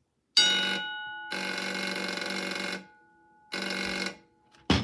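Pyrotronics Pyr-A-Larm BDC-1024 10-inch fire alarm bell powered in short bursts: a sudden strike with the gong ringing, then a harsh buzzing rattle for about a second and a half, a pause with the gong still faintly ringing, and a second short burst. The striker buzzes instead of ringing the gong cleanly, which the owner puts down to the mechanism not being tight. A sharp click comes near the end.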